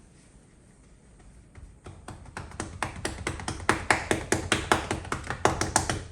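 Raw chicken breast being patted dry with paper towels: a quick run of sharp taps, about five or six a second, starting about a second and a half in, growing louder and stopping suddenly near the end.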